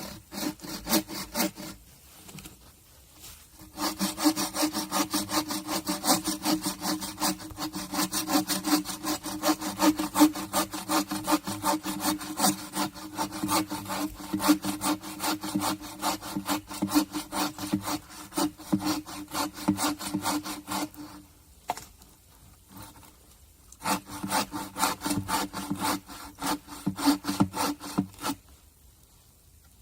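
Hand saw cutting through wood with quick, even back-and-forth strokes. A couple of short strokes come first, then a long run, a pause of about two seconds, and a shorter run near the end.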